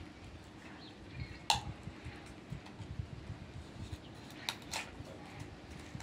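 Hands handling and pulling apart a raw whole chicken on a plate: soft wet handling noises with a few sharp clicks, one about a second and a half in and two close together near the end.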